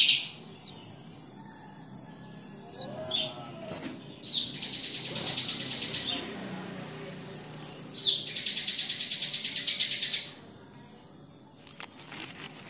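Bar-winged prinia (ciblek) nestlings begging in the nest with rapid, high-pitched chirping, in two bouts of about two seconds each, a couple of seconds apart.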